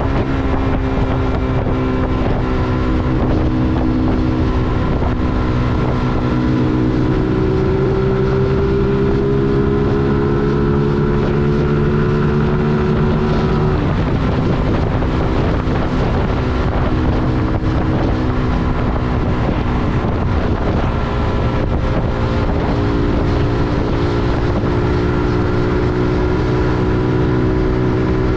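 A 125 cc motorcycle engine at speed heard from the rider's position, with heavy wind buffeting on the microphone. The engine note climbs slowly under throttle for about thirteen seconds, drops off suddenly, then comes back up near the end.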